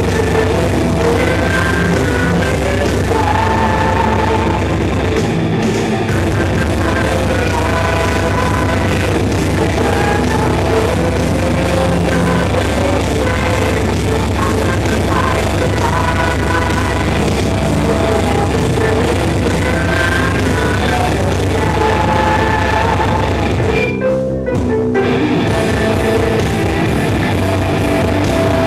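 Melodic metal band playing live: distorted guitars with a held lead melody, bass and drums, with some singing. About three-quarters of the way through, the cymbals and high end drop out for about a second before the band comes back in.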